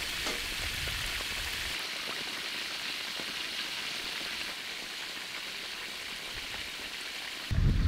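Whole stingray deep-frying in hot oil in a wok: a steady sizzling hiss with faint crackles. Near the end it cuts off sharply and a louder low rumble takes over.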